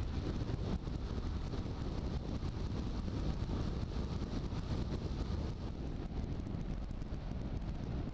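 Steady road noise from a vehicle on the move: wind rushing over the onboard camera's microphone, with engine and tyre rumble underneath.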